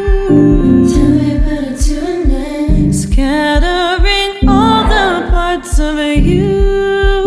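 A song with a woman singing, her voice bending and holding notes over a steady low beat of about two beats a second.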